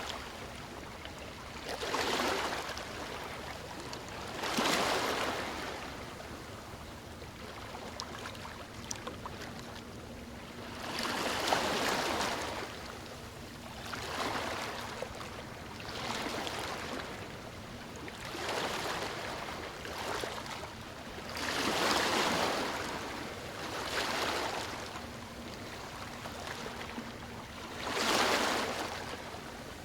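Sea waves breaking and washing up a shore, a swell of surf every few seconds over a steady wash.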